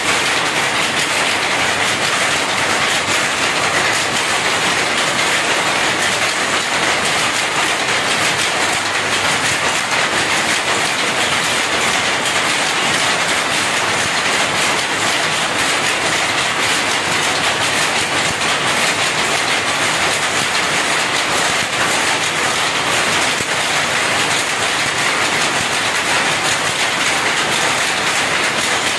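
Jacquard power looms running with a loud, steady, rapid mechanical clatter.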